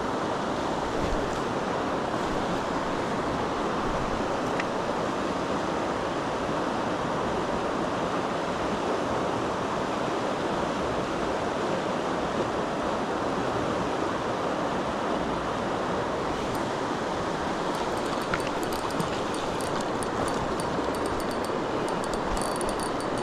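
Creek water rushing steadily, an unbroken even hiss.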